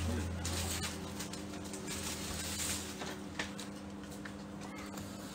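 A cardboard gift box being handled and its lid worked off: faint scraping and a few soft taps over a steady low hum.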